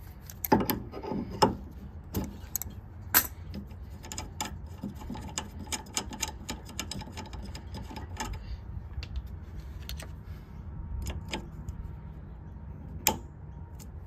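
Small metallic clicks and ticks of a brass cap being worked loose and unscrewed from an air conditioner outdoor unit's refrigerant service port, thick for the first eight seconds or so, then sparse, with one sharper click near the end, over a steady low rumble.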